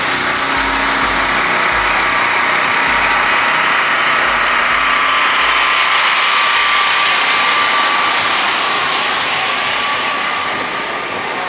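A vehicle engine running with a loud rushing noise that builds over the first several seconds and then eases off a little.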